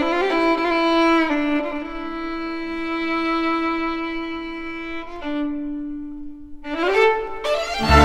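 Solo violin playing slow, long-held notes that slide from one pitch to the next, with a rising slide near the end.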